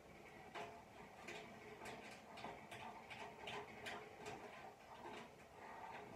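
Faint, irregular light clicks and taps, a couple a second, from small parts being handled and fitted by hand into the metal body of a smoker during assembly.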